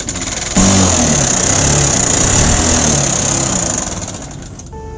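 Honda CB Trigger's single-cylinder motorcycle engine running with a harsh, bad-sounding mechanical noise, suddenly louder about half a second in with rising and falling revs, then dying away near the end. The noise is the complaint being diagnosed, which the mechanic thinks could be a jammed piston pin needing a new piston and valves.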